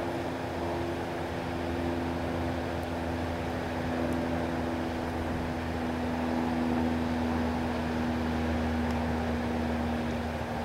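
A steady mechanical drone, like a motor running at a distance, with a low hum beneath it; its pitch drifts slightly.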